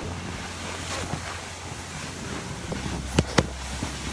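Wind buffeting the microphone in a blizzard, a steady low rumble and rush, with two sharp knocks in quick succession about three seconds in.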